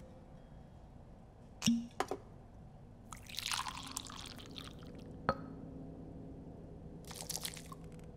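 Water poured from a ladle over the hands in a Shinto ritual hand-washing: a couple of sharp knocks, then a splashing pour, a click, and a second, shorter pour near the end.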